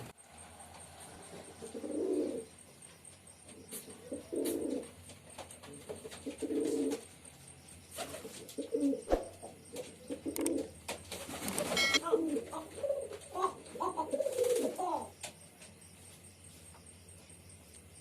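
Male domestic pigeon cooing in low-pitched phrases: a few spaced coos, then a denser run of them, with a short rustle in the middle, stopping near the end.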